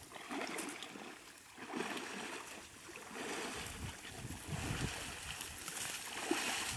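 Footsteps wading through shallow marsh water and mud, with tall reeds rustling and brushing against clothing in irregular bursts.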